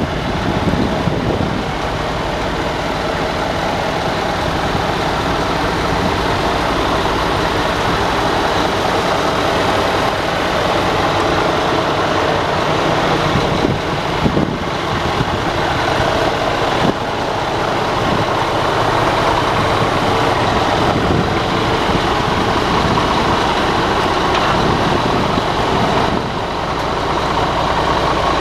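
Scania P400 tipper truck's 13-litre six-cylinder diesel engine running steadily.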